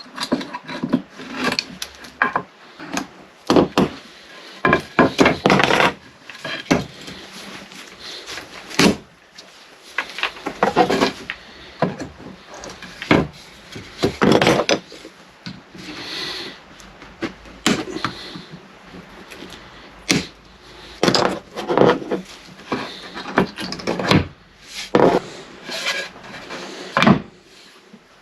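Wooden bed slats knocking and scraping against one another in irregular strikes while a slatted bed base is pulled apart into pieces.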